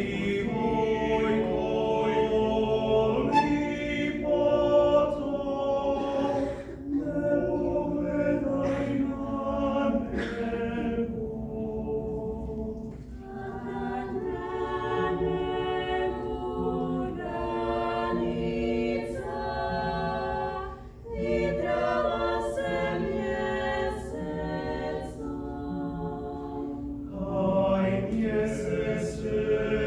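Mixed chamber choir singing a cappella: the slow opening song of a harmonized setting of Bosnian Krajina folk songs, in long held chords, with a short break about two-thirds of the way through.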